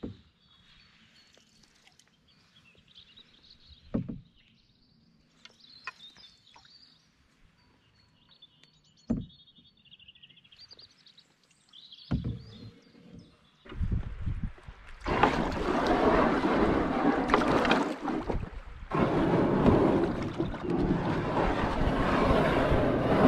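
Open canoe drifting on still water, near-quiet apart from faint birdsong and a couple of soft splashes. From about fourteen seconds in comes a loud, rough, continuous scraping and crunching as the canoe's hull grounds on a shingle bank and is hauled over the gravel, with a short break partway through.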